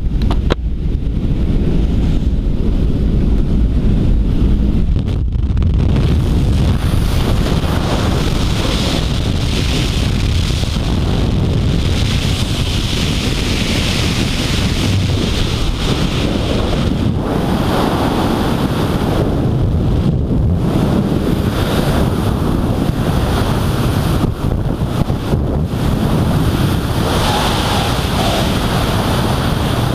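Loud, steady wind buffeting a helmet-mounted camera's microphone, with a small jump plane's engine rumbling under it at the open door. About six seconds in, the rush turns brighter and fuller as the skydivers move out into the airflow and then into freefall.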